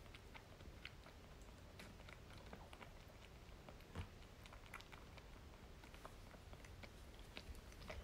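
A kitten suckling milk from a feeding bottle: faint, irregular wet clicks and smacks of its mouth working the nipple, with one slightly louder click about four seconds in.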